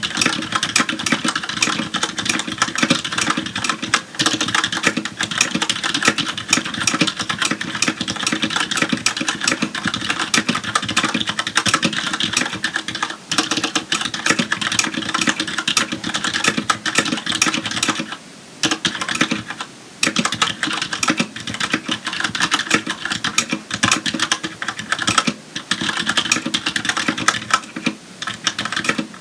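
Fast, continuous typing on a Filco Majestouch Tenkeyless mechanical keyboard with linear Cherry MX Red switches, a dense stream of key clacks with a few brief pauses about two-thirds of the way in.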